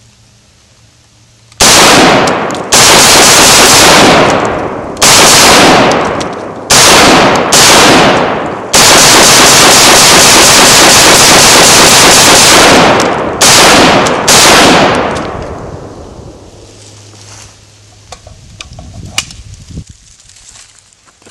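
IMI Tavor TAR-21 bullpup rifle firing 5.56 NATO rounds: loud shots in quick strings, with a few seconds of rapid fire in the middle, each report ringing out before it fades.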